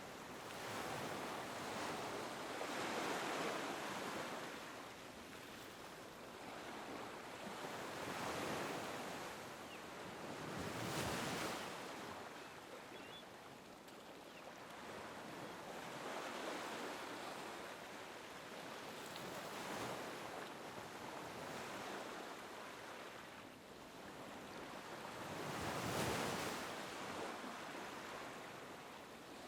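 Small waves lapping on a beach, each wash swelling and fading every few seconds, with two sharper breaks, about a third of the way in and near the end.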